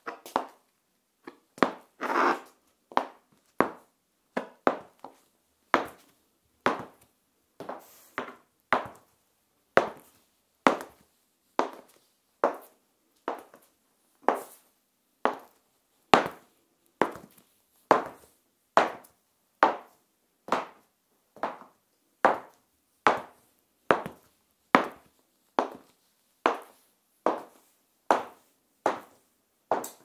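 Stiletto high heels with metal heel tips clicking on a tiled floor in a steady walk, one sharp click per step, a little more than one a second. One step about two seconds in is longer and louder than the rest.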